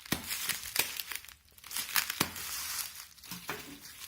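Wrapping being pulled open by hand on a gift item: irregular crinkling and crackling with some tearing.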